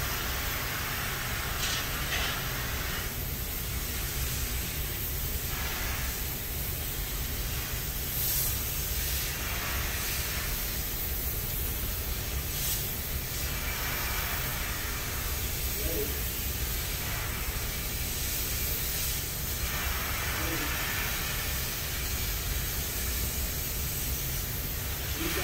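Steady hiss over a low rumble, the running background noise of a workshop; the hiss swells and fades every few seconds.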